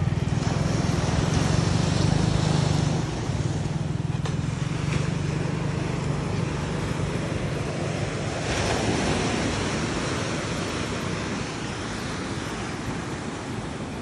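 Sea surf washing in against a seawall, with a rushing surge of a wave about eight and a half seconds in that slowly dies away. A steady low engine hum runs under the first half and fades out around seven seconds in.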